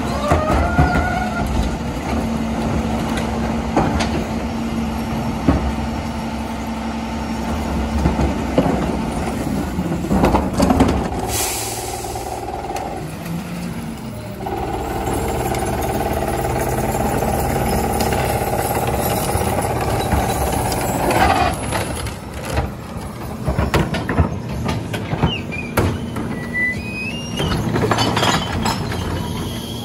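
McNeilus rear-loader garbage truck running while recycling carts are tipped and packed: steady engine drone with knocks and clanks of carts on the tipper, and rising hydraulic whines as the tippers lift. A short hiss comes a little before halfway, then the engine speeds up and the hydraulic packer whines steadily for several seconds while it compacts the load.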